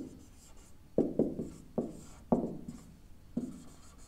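Marker pen writing on a whiteboard: about six short taps and strokes, each with a brief ring from the board.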